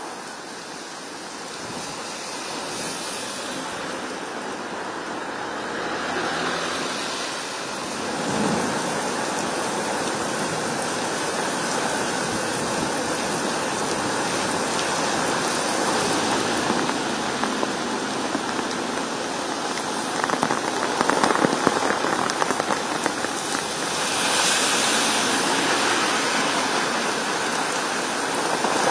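Rain falling steadily, a continuous hiss of drops on surfaces, growing a little louder with a denser patter about twenty seconds in.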